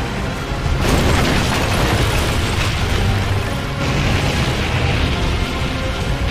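Anime sound effects of a row of huge explosions and a heavy continuous rumble, mixed with music. The din swells sharply about a second in and again near four seconds.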